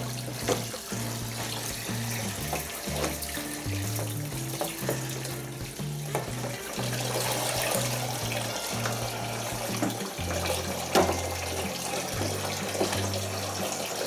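Hot water running from a tap and splashing into a sink as a plastic washing machine detergent drawer is rinsed and tipped out, with a few brief knocks. Background music with a bass line that steps from note to note plays under it.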